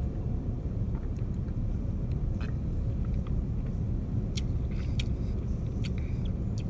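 Steady low rumble of an idling car heard inside the cabin, with a few faint mouth clicks and lip smacks as a man drinks soda and tastes it.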